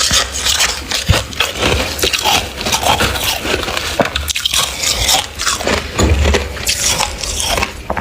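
Close-miked crunching and chewing of freezer frost: dense, crackly crunches with sharp clicks, over and over.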